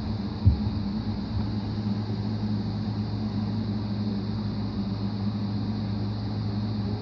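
Steady low machine hum, with one short knock about half a second in.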